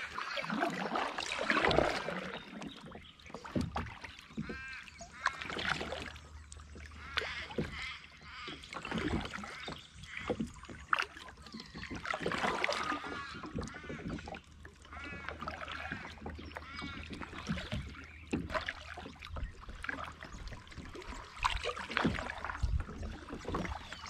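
Kayak paddle strokes dipping into and pulling through calm water, with splashes and drips at an uneven pace. Birds call now and then in the background.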